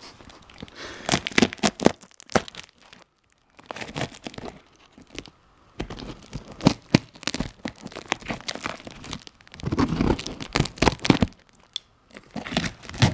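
Layers of packing tape on a cardboard parcel being picked at and pulled off by hand: irregular bursts of tape tearing and crinkling, with short pauses.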